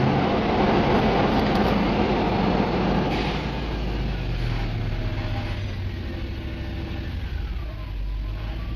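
Lexus LX470's 4.7-litre V8 engine running, its revs and noise easing down gradually over several seconds toward idle.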